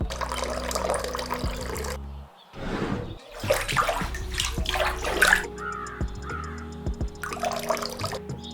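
Background music over water running and splashing, broken by abrupt cuts about two and three seconds in.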